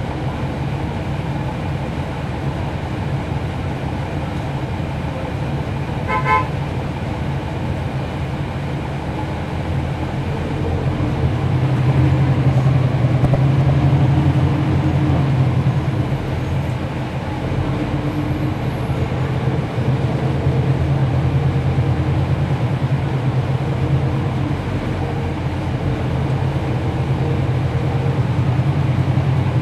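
Cummins ISL9 diesel engine of a 2011 NABI 416.15 transit bus, heard from on board. It runs steadily, grows louder about ten seconds in, eases briefly and then picks up again. A brief high toot comes about six seconds in.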